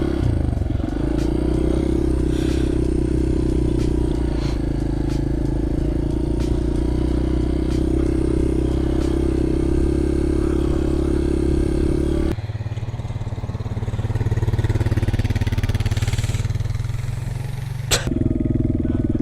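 Four-wheeler (ATV) engine running at a steady speed while pulling a sled through snow. About twelve seconds in, the sound changes abruptly to a lower engine tone, and near the end there is a single sharp click.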